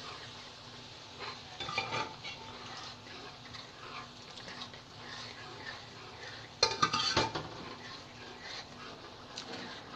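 A spoon stirring and scraping through thick dal in a cooking pot, with clinks against the pot. The loudest clatter of knocks comes about two-thirds of the way through.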